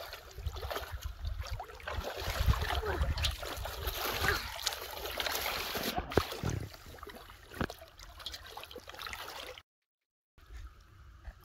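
Shallow muddy water splashing and sloshing irregularly as a person wades through it and grabs at fish with bare hands. A brief gap of total silence near the end.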